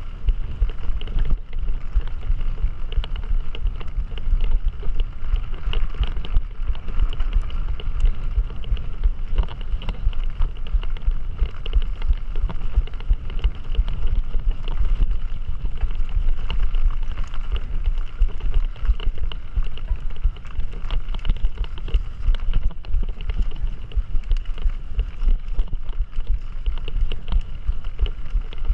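Wind buffeting the microphone over a steady rumble with constant small rattles and knocks, typical of a mountain bike being ridden over a rough trail.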